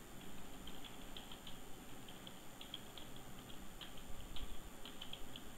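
Computer keyboard typing: faint, irregularly spaced key clicks as a line of text is typed.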